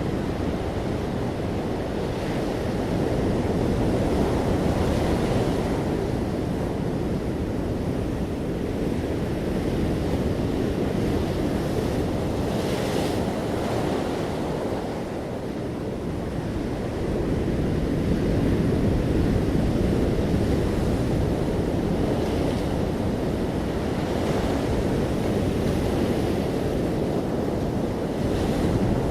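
Ocean waves breaking on a shore: a continuous deep wash of surf that swells and eases slowly, with the hiss of a breaking wave now and then.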